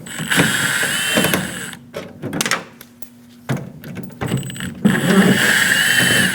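Cordless drill with a Phillips bit backing out two screws: two runs of a steady motor whine of about a second and a half each, the second starting about five seconds in, with a few small handling clicks between.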